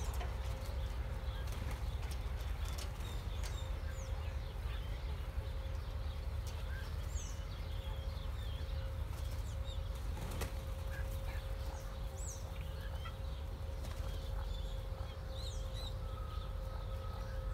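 Scattered short, high bird chirps over a steady low rumble and a faint constant hum.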